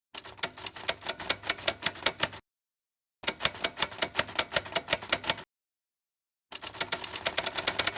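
Rapid typewriter-style keystroke clicks in three runs of about two seconds each, with dead silence between runs.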